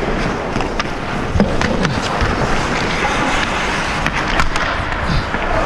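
Hockey skate blades scraping and carving across the ice, with a few sharp clicks of sticks on the puck.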